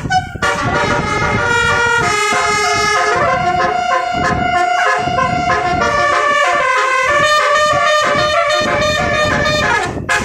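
Multi-tone 'basuri' telolet bus horn playing a melody in held notes that jump quickly from pitch to pitch, several horn tones sounding together, stopping near the end.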